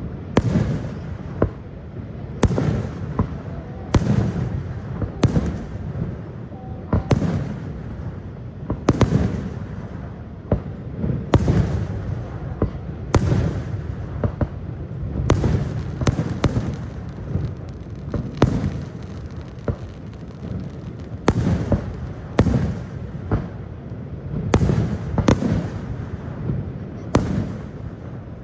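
Fireworks display: a steady series of sharp bangs of aerial shells bursting, about one every one to two seconds, each followed by a rolling rumble and echo.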